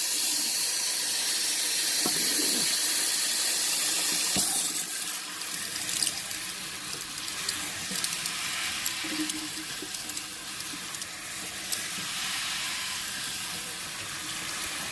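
Kitchen tap running into a sink, a steady rush of water that is louder for the first four or five seconds and then softer, with a few small clinks.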